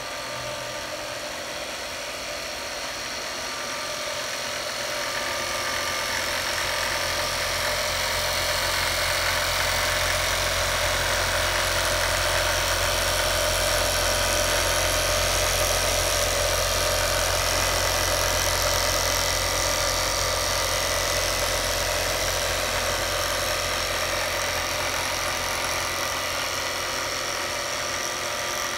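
Yamato industrial sewing machine running continuously at speed, stitching tape fed off reels through a binder attachment: a steady mechanical hum and whir that grows louder over the first several seconds, then holds steady.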